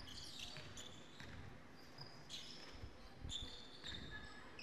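Faint basketball game play on a hardwood court: the ball bouncing and shoes squeaking in short high chirps now and then, in a large echoing hall.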